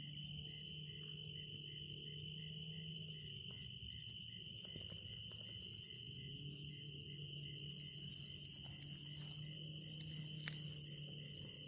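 Crickets chirping in an evening chorus: a steady high trill, with one cricket pulsing regularly about two or three times a second.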